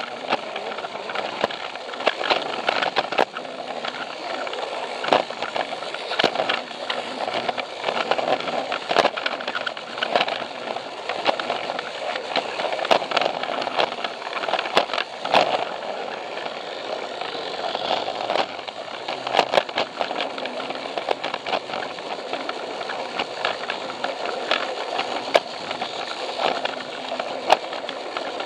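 A Plarail toy train's small battery motor and gearbox running steadily, heard up close from on board. Its plastic wheels rattle along the plastic track, with frequent irregular clicks.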